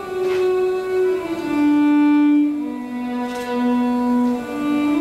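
Solo violin playing a slow melody of long held notes, each lasting a second or two, sliding from one note to the next. The melody steps down through several notes and then climbs back up near the end.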